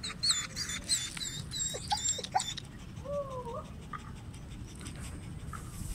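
A dog whimpering and whining in a few short high glides around the middle, over a steady low background rumble, with repeated high chirps in the first half.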